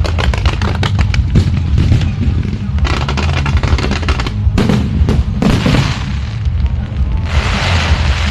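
Fireworks going off in rapid runs of sharp cracks and bangs, with a dense crackling hiss from about seven seconds in.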